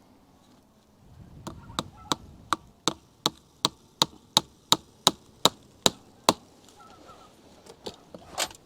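Hammering: a steady run of about fourteen sharp, evenly spaced hammer blows, roughly three a second, followed by a few lighter knocks near the end.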